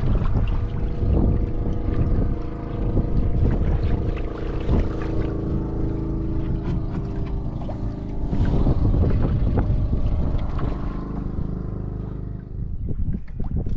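A boat engine running steadily, with wind and water noise.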